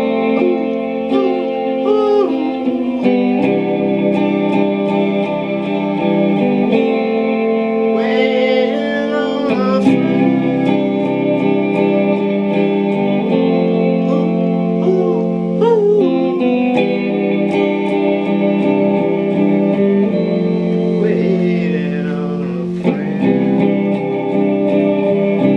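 Guitar music: chords and sustained notes, with bent, wavering lead notes twice.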